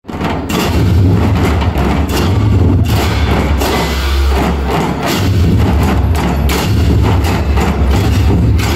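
A large massed ensemble of Newar dhime drums playing a loud, driving rhythm, the deep drumbeats overlapping almost without pause, with crashing bhusya cymbals.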